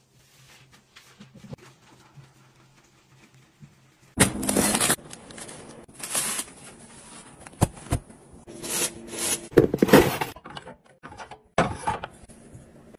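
Handling sounds of household items: after a quiet start, a run of short swishing, rustling noises and a sharp click, including tissues being pulled from a soft-pack tissue pack hung on the wall.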